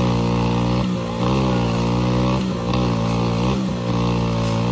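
A mini Massey Ferguson 385-style tractor's engine running hard while hitched to a heavily loaded sugarcane trolley. Its pitch sags and picks back up about once a second, as it labours against the load.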